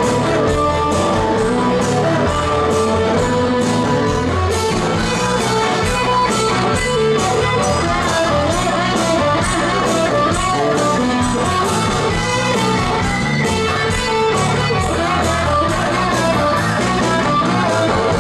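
Rock band playing loud through a concert PA, electric guitar-led with a steady drum beat.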